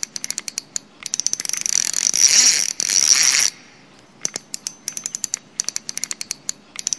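Spinning fishing reel clicking rapidly, several clicks a second, with a louder steady high-pitched whirr of the reel and line from about one second in to three and a half seconds.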